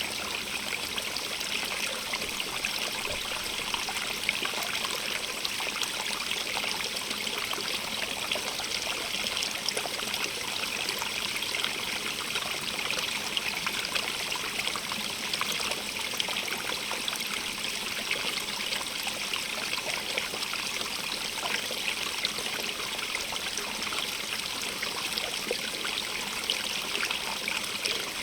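A small stream running over stones, a steady rush of water with fine trickling and splashing throughout.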